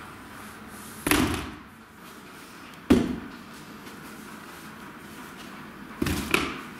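Four sharp thuds of bodies and limbs hitting a padded floor mat during a grapple. They come about a second in, nearly two seconds later, and as two quick ones close together near the end.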